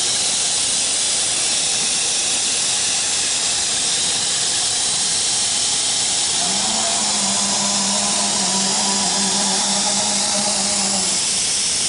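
ATC CNC router: a steady hiss from the machine throughout. From about halfway through, a steady motor hum joins it for roughly four and a half seconds as an axis drive moves the spindle head across the table, and then it stops.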